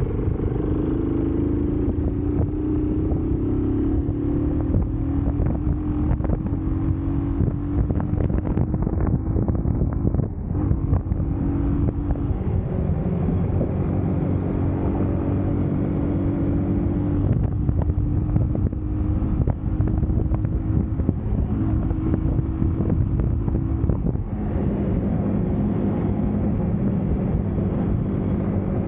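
A 250cc Eagles EBA250 motorcycle engine running under way off-road, its pitch rising and falling with the throttle, with frequent short knocks.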